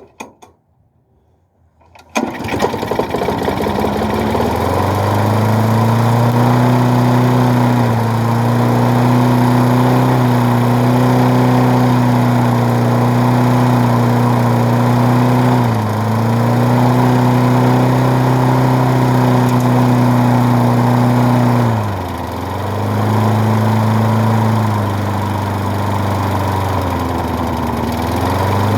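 Small lawnmower engine, revived after years of sitting, catches about two seconds in and runs steadily. Its speed sags briefly and picks back up a few times.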